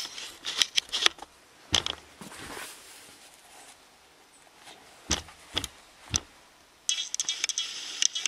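Scattered clicks and knocks of metal tools on the Triumph Herald 13/60 engine as the crankshaft end float is checked, with a brief rasping noise near the end.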